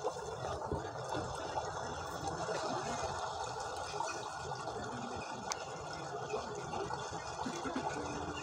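Steady sound of flowing water, a river sound effect.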